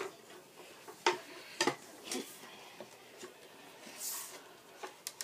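Light clicks and knocks of small hard objects being handled, three spaced about half a second apart, with a short rustle about four seconds in.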